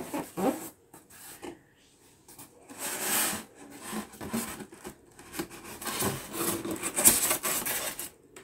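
Cardboard box and packing being handled during an unboxing: irregular bursts of rubbing and scraping with short pauses between.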